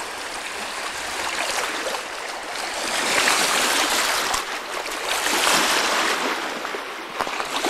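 Small waves washing onto a rocky lakeshore, a steady rush of water that swells and falls every second or two.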